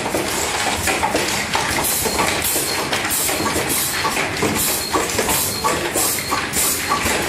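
Automatic 18650 battery pack assembly line running: a steady, dense clatter of many small clicks and knocks, as metal cells roll and knock through the hopper and star-wheel feeders.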